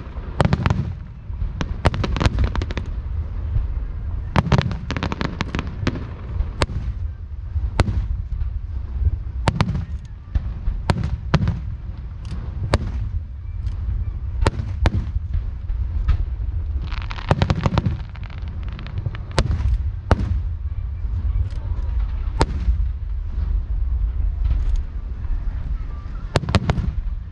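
Aerial fireworks show: sharp bangs going off one after another, with dense clusters of rapid pops, over a deep continuous rumble.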